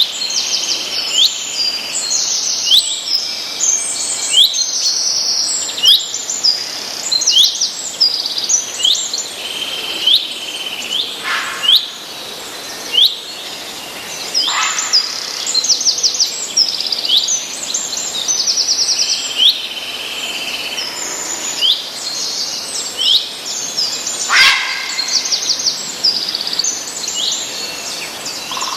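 Songbirds chirping and singing: a dense run of short, sharp notes and quick trills, over a faint steady background hiss.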